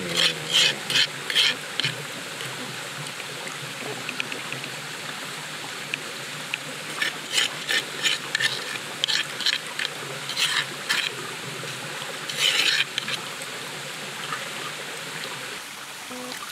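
Metal spoon scraping and clinking against a metal cooking pot in short bursts, stirring spice paste into the water, over a steady background hiss.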